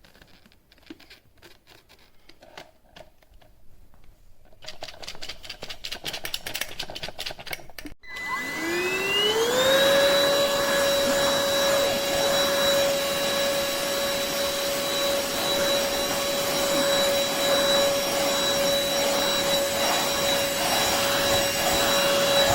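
Light handling clicks and rustles, then about eight seconds in the Stanew 4-in-1 cordless stick vacuum cleaner is switched on. Its motor spins up with a whine rising in pitch over about two seconds, then runs steadily with a high whine over the suction noise.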